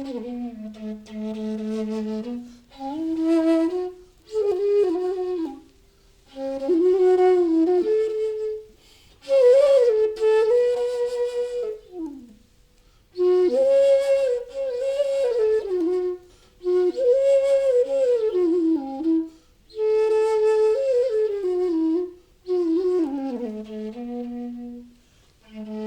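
Solo bansuri, a bamboo transverse flute, playing a slow, improvised-sounding melody in the low register, in phrases of a few seconds with short breaths between them, the notes sliding and bending from one pitch to the next.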